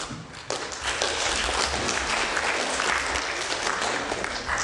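Audience applauding. The clapping builds about half a second in, holds steady, and fades away near the end.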